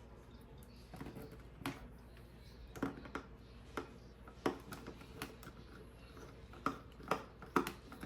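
Light, irregular clicks and taps of a small Y-tip (tri-point) precision screwdriver and tiny screws while screws are being backed out inside an opened iPhone 11, about a dozen sharp ticks with short gaps between them.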